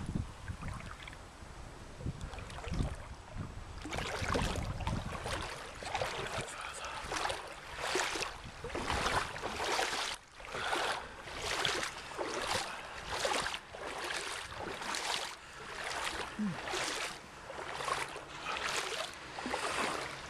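Footsteps wading through shallow floodwater, a swishing splash with each stride at walking pace, starting about four seconds in. Before that, low wind rumble on the microphone.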